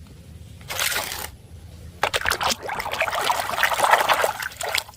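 Water pouring and splashing over a plastic toy as it is rinsed clean, in a short burst about a second in, then a longer run of splashing from about two seconds in.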